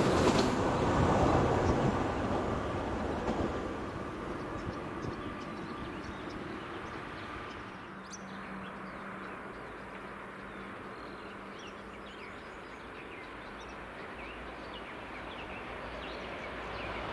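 A passing electric train's rumble fading away over the first few seconds, leaving a quiet outdoor lull with small birds chirping. Near the end the sound of an approaching train begins to rise.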